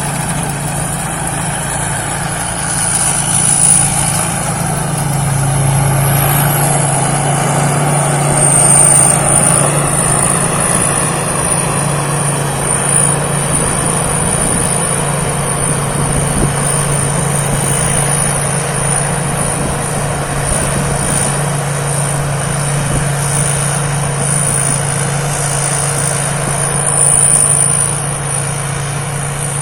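Rice combine harvester's engine running steadily, a continuous low drone with a thin high-pitched whine held over it.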